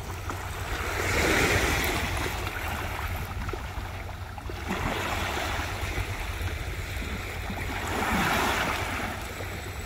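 Surf breaking on a beach, swelling about a second in and again near the end, over a steady low wind rumble on the microphone.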